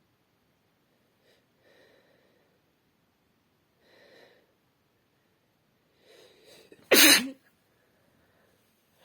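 A woman sneezes once, loudly and briefly, about seven seconds in, after a few faint catching breaths as the sneeze builds.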